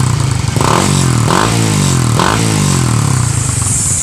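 Suzuki Raider 150 Fi motorcycle's single-cylinder engine idling and blipped on the throttle three times, each rev rising quickly and falling back to idle.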